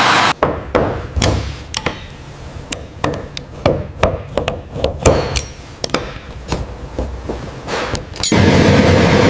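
An irregular run of sharp hammer taps and metallic clinks on metal parts, some ringing briefly. Near the end a loud, steady rushing noise cuts in.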